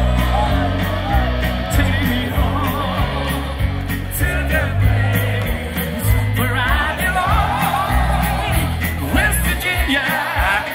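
Loud band music through the PA with a heavy bass beat and singing, the crowd yelling and whooping along. The music cuts off near the end.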